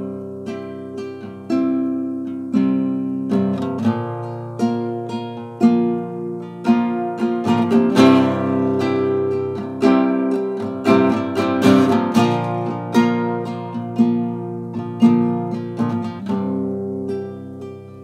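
Nylon-string classical guitar playing chords, picked and strummed, each ringing out; the strumming grows fuller and brighter about halfway through, then eases back.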